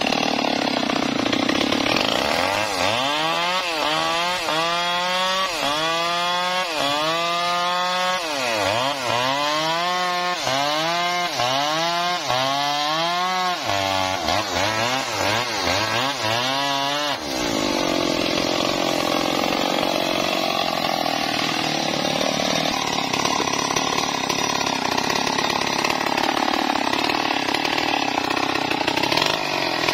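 Stihl MS 382 two-stroke chainsaw cutting wood. For about the first half its engine pitch rises and falls roughly once a second. From a little past the middle it runs steadily at high speed through the cut.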